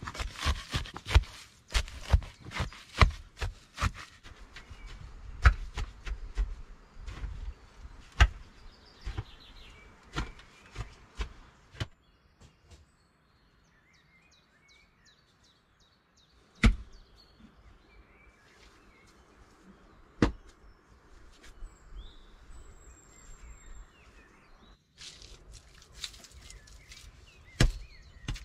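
A digging tool chops into earth in a quick run of repeated strikes for about the first twelve seconds. A quiet stretch follows with faint bird chirps and a few scattered knocks. Near the end there are a couple more thumps of soil being worked by hand.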